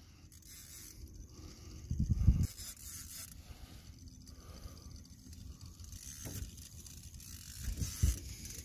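Fishing reel's drag buzzing in short spells as a hooked striped bass pulls out line, with low thumps about two seconds in and again near the end.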